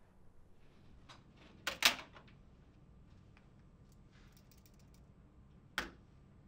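Objects being handled on a desk: two sharp knocks close together about two seconds in, a run of faint clicks, then another sharp knock near the end.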